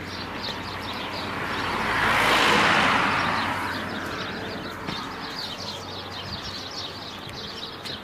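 A dawn chorus of many small birds chirping continuously in quick, overlapping high chirps. About a second in, a rushing noise swells up over the birds and fades away again by about four seconds.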